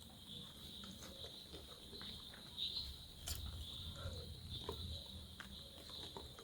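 Quiet, faint eating noises of someone chewing fried rice, with a few small clicks, over a steady high chirring of insects.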